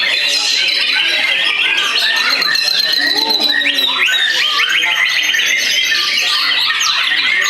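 White-rumped shamas (murai batu) singing at once in a songbird contest: a dense, continuous tangle of fast trills, whistles and rapidly repeated notes.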